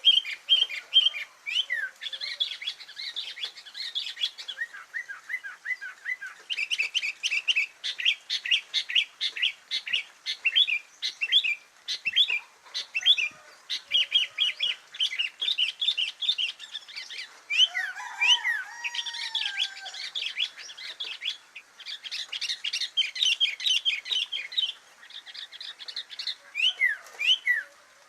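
Small songbird singing a chattering song of rapid, sharp chirps repeated in fast runs, with a few slurred lower whistles about two-thirds of the way through; a bird-song recording of the kind played to train a kutilang.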